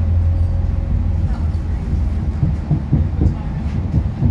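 Running noise inside a moving passenger train: a steady low drone with rumble, and a few knocks from the wheels over the track in the second half.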